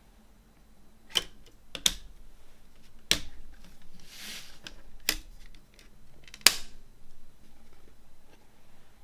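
CD packaging being handled: a series of sharp plastic clicks and taps, the loudest near the end, with a brief sliding rustle in the middle.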